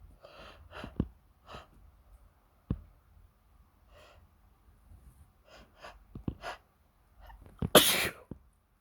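A person's sneeze: a run of short breathy bursts and a few sharp clicks, then one loud sneeze near the end.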